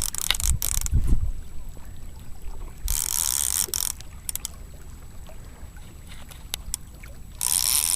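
A spinning reel's drag giving line in three bursts of high buzzing, each about a second long, as a hooked striped bass pulls against light tackle. There are low thumps about a second in.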